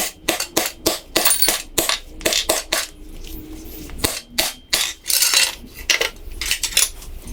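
Metal hand tools and engine parts clinking and clicking while a connecting rod and piston come out of the block: a quick run of sharp metallic clicks through the first three seconds, then scattered clinks and short scrapes.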